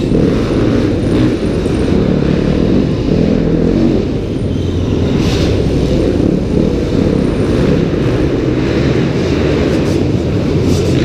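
2015 Yamaha YZ250F's four-stroke single-cylinder engine running as the bike is ridden round the track, heard from a helmet-mounted camera. A thin, high squeal of unknown cause comes and goes over the engine note.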